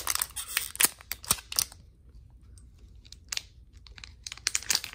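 Foil wrapper of a Topps 2019 Update Series baseball card pack crinkling and crackling as it is handled to be opened. The crackles are dense for the first couple of seconds, fall quiet through the middle, and start again near the end.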